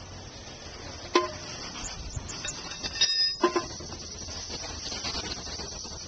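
Sharp metal clinks with a brief ring, once about a second in and a few more around three seconds in, as the metal bee smoker is handled and set down by the hive, over a steady high-pitched hiss.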